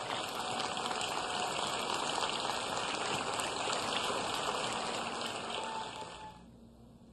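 Audience applauding steadily, fading out about six seconds in.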